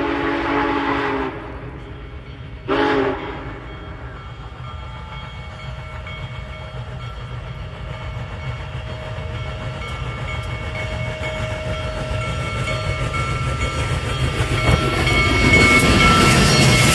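Union Pacific Big Boy steam locomotive's chime whistle: a long chord that cuts off about a second in, then a short second toot near three seconds. After that the rumble of the approaching train builds steadily louder.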